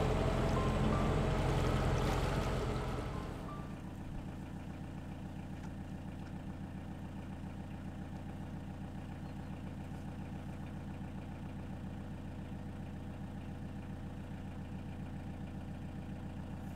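Narrowboat diesel engine running steadily at low revs, a low, even chugging hum. For the first three seconds it sits under louder, rougher machinery noise, which then drops away.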